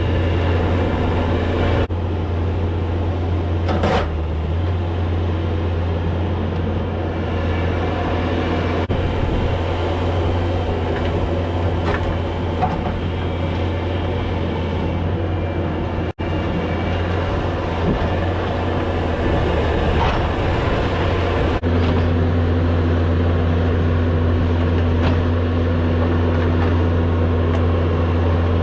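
Bobcat S570 skid steer's diesel engine running steadily while digging a trench in rocky ground, with a sharp knock about four seconds in.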